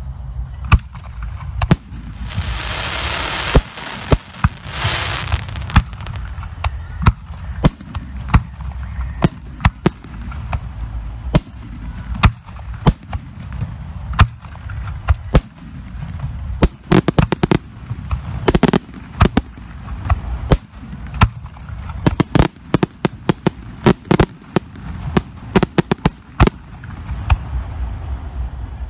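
Professional aerial firework shells bursting one after another with sharp reports, coming in dense rapid volleys around the middle and toward the end. A rushing hiss runs for about three seconds, starting about two seconds in.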